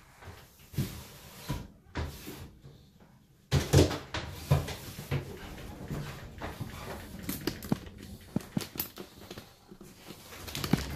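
Glass door of a snake-enclosure cabinet being handled, with a few soft knocks, then a sudden loud clatter about three and a half seconds in and irregular knocks and rattles after it as a live rabbit is put into the python's compartment.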